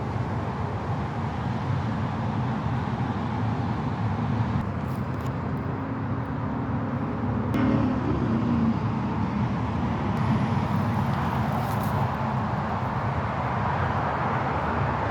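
Steady outdoor background noise with a low rumble, like distant road traffic, and a brief tonal sound about eight seconds in.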